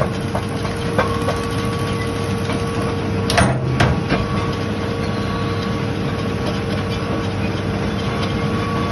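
Hitachi hydraulic excavator's diesel engine running steadily at idle, with a constant whine over the low rumble. A couple of short knocks come about three and a half seconds in.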